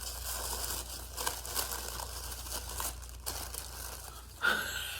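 Wrapping crinkling and tearing as a packaged item is unwrapped by hand, a steady run of small rustles and crackles.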